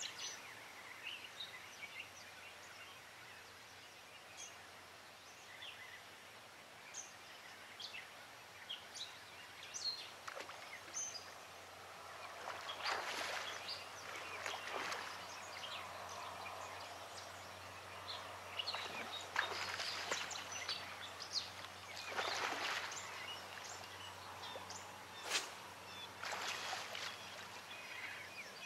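Birds chirping and singing all through. From about halfway on come several bursts of splashing as a hooked striped bass thrashes at the surface close in.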